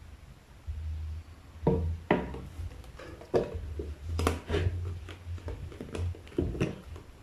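Irregular light clicks and knocks of objects being handled, starting a couple of seconds in, over a low rumble that comes and goes.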